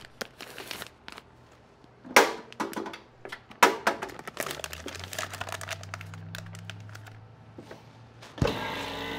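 Plastic marinade bag crinkling, with knocks and clicks, as it is handled and loaded into a chamber vacuum sealer. Near the end the sealer starts with a sudden, steady machine hum.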